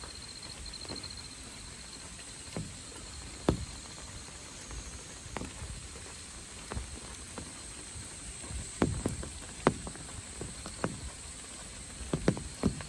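Insects calling steadily in high thin trills over a faint hiss of rain, with irregular sharp taps scattered through, several close together near the end.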